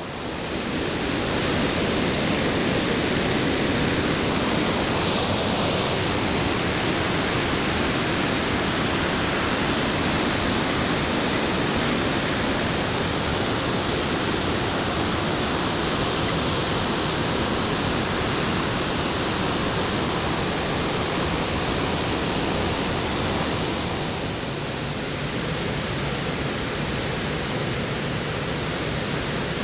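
Steady, loud rushing noise with no distinct sounds in it, dipping slightly about 24 seconds in.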